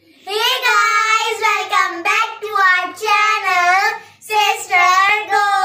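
Young girls singing a short, upbeat intro song in high voices, with held, gliding notes and a brief break about four seconds in.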